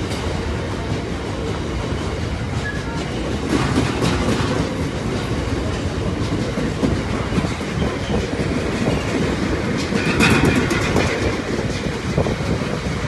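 Freight train of bogie oil tank wagons rolling past at close range: a steady rumble of steel wheels on rail, with bursts of clatter about four seconds in and again near ten seconds.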